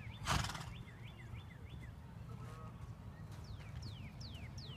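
A bird calling in a rapid series of short descending whistled notes, several a second, which pause and pick up again about three seconds in. Just after the start a brief loud noise burst stands out as the loudest sound.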